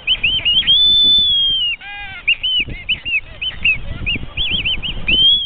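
Black-footed albatrosses calling in their courtship dance: high, squeaky whistles that rise and fall, with a long drawn-out whistle about a second in and again near the end, a quick run of short whistles between them, and a brief lower call about two seconds in.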